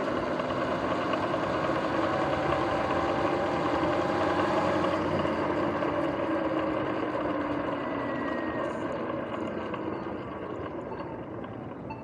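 Sur-Ron electric dirt bike under way: a motor and drivetrain whine that shifts in pitch over steady rolling noise, easing off over the last few seconds as the bike slows. The uploader puts the bike's grinding, clicking noise down to worn front hub and jackshaft bearings.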